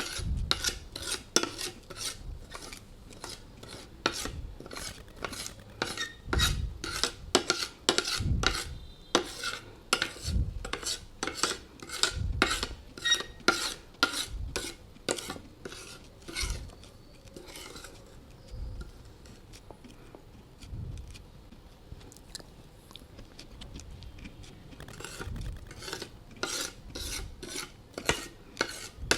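Close-up chewing of slate pencils: rapid, brittle crunches, two or three a second, with occasional heavier bites. The crunching thins out for a few seconds past the middle, then picks up again near the end.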